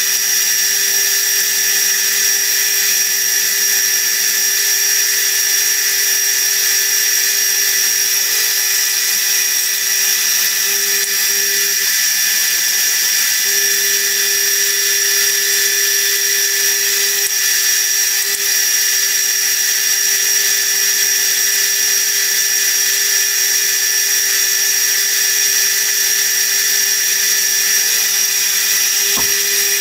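Milling machine spindle running steadily, with a steady whine in several pitches, while its 2 mm end mill cuts a screwdriver slot into the head of a small screw. A single short click near the end.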